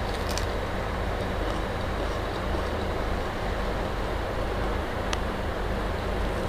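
Steady low background rumble at an even level, with a few faint clicks just after the start and one about five seconds in.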